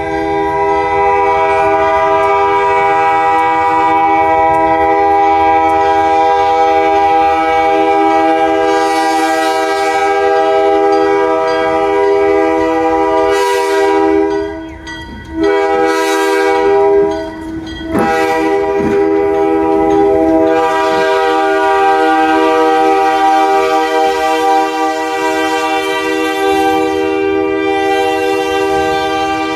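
Diesel locomotive horn sounding long, nearly unbroken blasts, with two short breaks about halfway through.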